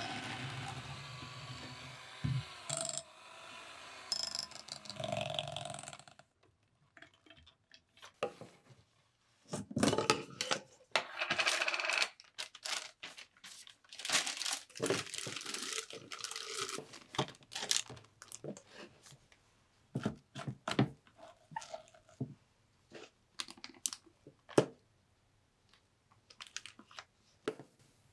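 An electric hand mixer whips cream with a steady whir and stops about six seconds in. After that come scattered knocks, clinks and plastic crinkling as the whipped cream is moved into a plastic piping bag.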